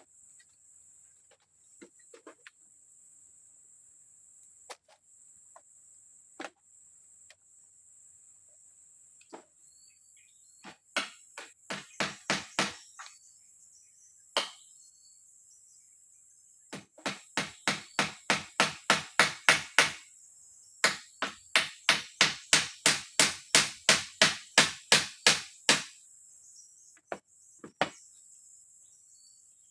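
Runs of hammer-like blows, about four a second, with two long runs in the second half. Under them, a steady high buzz of forest insects.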